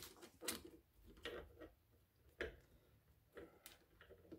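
Faint, scattered small metal clicks and taps, about six in four seconds, as a ratchet head and its shield ring are worked between the jaws of a bench vise to press the ring back on.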